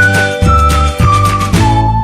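Background music: a high, pure-toned lead melody steps downward over a bass pulsing about twice a second.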